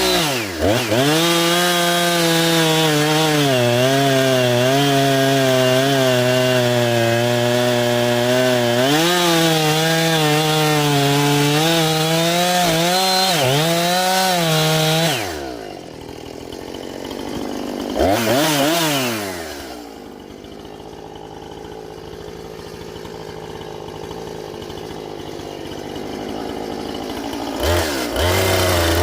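Husqvarna chainsaw running at high revs, its pitch wavering as if under load in a cut, for about the first half. It then drops back to idle, blips the throttle once, idles, and revs up again near the end.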